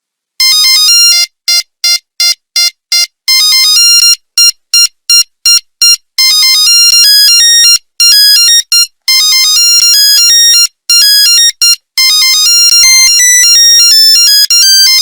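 Nokia 3310 monophonic ringtone playing a melody in buzzy electronic beeps, one note at a time. It opens about half a second in with a run of short separate beeps, then goes on in longer phrases of quickly stepping notes.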